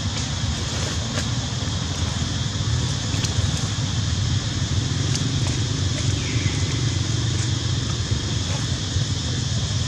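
Steady low outdoor rumble, with a few faint clicks on top.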